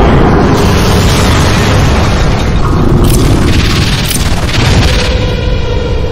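A Skibidi Toilet monster's voice clip: a loud, dense, continuous rumble, with a faint pitched tone joining in about five seconds in.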